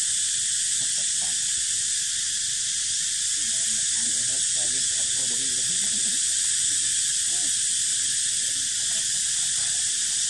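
A steady, high-pitched insect chorus: a continuous shrill hiss that does not break or change.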